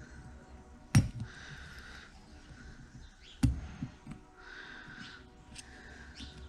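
Two sharp knocks of small hand tools or turbo parts against each other on a workbench, about a second in and again about three and a half seconds in, each followed by a few lighter ticks.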